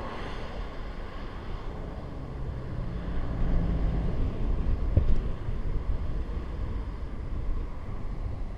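Wind rumbling on a head-mounted GoPro's microphone while cycling, with a single sharp knock about five seconds in.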